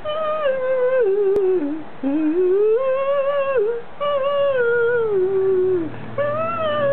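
A baby vocalising in four long, drawn-out tones, each one gliding up and down in pitch, with short breaks between them.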